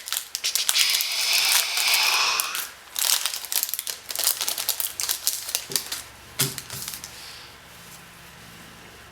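Trading-card pack being handled: a rough tearing hiss of the wrapper from about half a second to two and a half seconds in, with rapid clicks and flicks of cards being leafed through that die down near the end.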